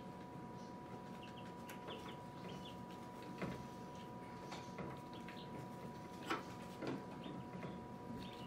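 Scattered small clicks and rattles of hands and a small tool working wires and connectors inside a plastic incubator, over a steady faint electrical hum.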